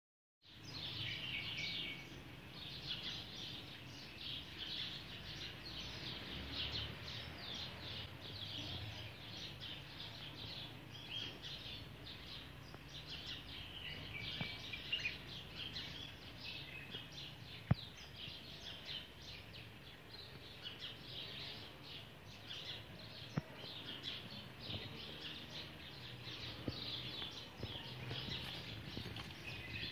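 Birds chirping in a continuous busy chatter of many short high calls over a low steady background rumble, with a few sharp clicks.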